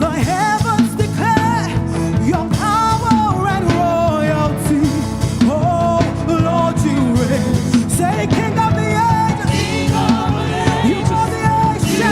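Live gospel praise and worship music: a lead voice singing over a full church band with drums, guitar and keyboard.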